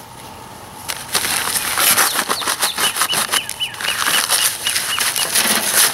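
A utility knife slits open a heavy multi-wall paper bag of concrete mix, starting about a second in. The stiff paper crackles and rustles, with many small crinkles and scrapes as the bag is cut and worked open.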